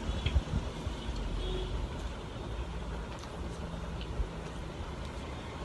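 A person chewing a chicken meatball, with a few faint, short mouth clicks over a steady low background rumble.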